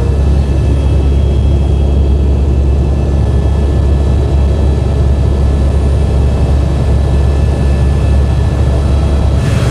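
Helicopter in flight, heard from inside the cabin: a loud, steady low drone of rotor and engine with faint thin whining tones above it.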